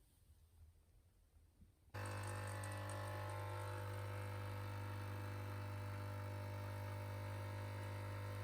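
A steady machine hum, strongest in a low drone, starts abruptly about two seconds in and holds unchanged.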